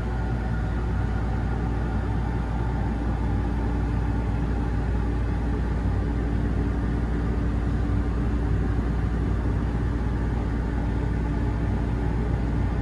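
Steady low hum and rumble inside a moving Ferris wheel gondola, with several fixed tones over it and no change in level.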